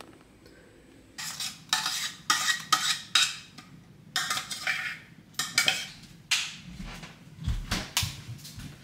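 A metal spoon scraping and clinking against a stainless steel pot of porridge and against dishes, in a run of short, irregular strokes that start about a second in.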